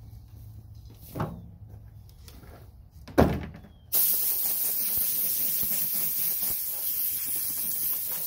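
Small Central Pneumatic 3-gallon air compressor: two knocks, then about four seconds in a steady hiss of rushing air starts abruptly and runs on.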